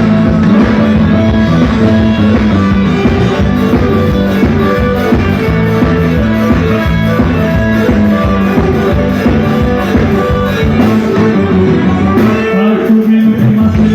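Band music: electric guitar over drums and bass with a steady beat. The low end drops out briefly near the end.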